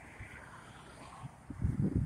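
2014 Chevrolet Camaro's 3.6-litre V6 idling, heard at the tailpipes. Irregular low thumps of wind buffeting the microphone come in from about one and a half seconds in.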